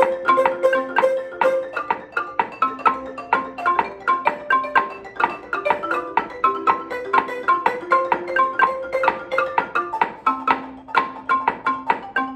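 Wooden-bar marimba with tube resonators played with two mallets: a steady stream of struck notes forming a melody, each note with a short ringing decay.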